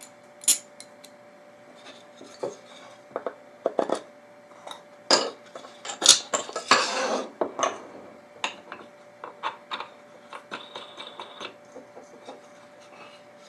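Scattered light clicks, clinks and knocks as a steel all-thread rod and plastic threaded knob are screwed onto a wooden clamp block and the block is handled, with a longer rubbing, scraping stretch about six to seven and a half seconds in.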